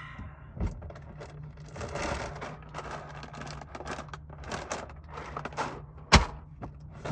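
Rummaging and handling things in a van: irregular rustling and light clattering, with one sharp knock about six seconds in, over a steady low hum.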